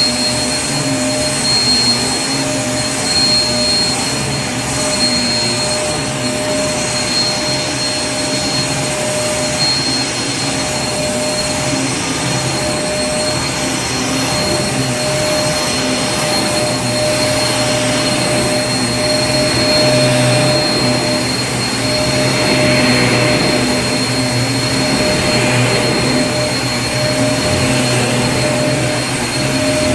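Vacuum cleaner motor running steadily: an even rush of air with a steady high whine over a lower hum.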